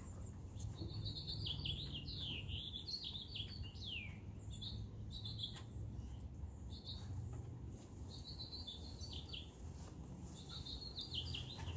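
Songbird singing, several phrases of quick rising and falling notes, over a low steady rumble.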